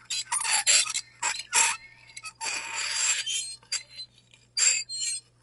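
Metal fork tines scraping across a ceramic plate in irregular strokes, short ones and one longer drag of about a second. The scrapes are high and squealing.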